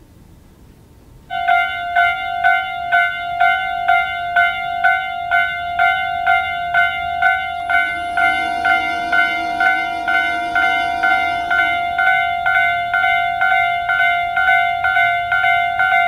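Japanese railway level-crossing alarm, the standard Tobu-type electronic bell, starting about a second in and striking about twice a second, a little faster near the end, as the crossing closes for an approaching train.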